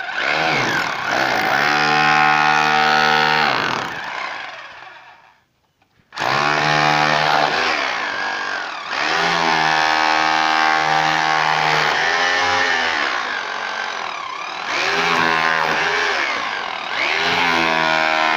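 Electric hammer drill in hammer-only mode with a flat chisel bit, chipping a pre-cut groove out of a brick wall. The motor and hammer action run loud, with pitch rising and falling as the bit bites. It winds down and stops about five seconds in, then starts again a second later and runs on.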